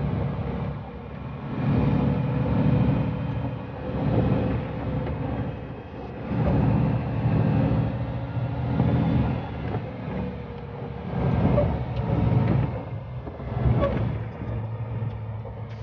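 Vehicle engine and road rumble heard from inside the cab while driving on a wet dirt road, swelling and easing every couple of seconds.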